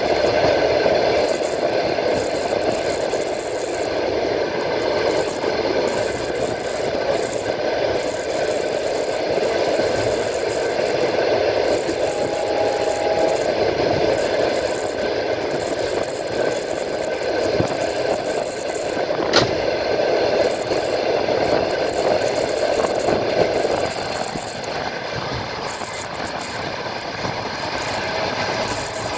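A passenger train carriage running along the line: a steady rumble and rattle of wheels on rails, with one sharp click about two-thirds of the way through. It eases slightly in the last few seconds.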